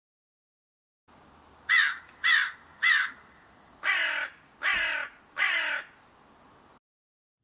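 A crow cawing six times: three short caws, then three longer, harsher caws after a brief pause.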